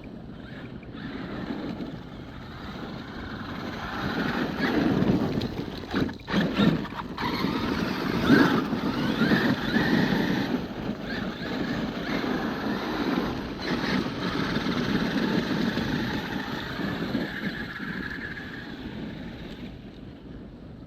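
Traxxas X-Maxx electric RC monster truck driving over grass: its motor whine rises and falls with the throttle over the noise of tyres and drivetrain. It grows louder a few seconds in and eases off near the end.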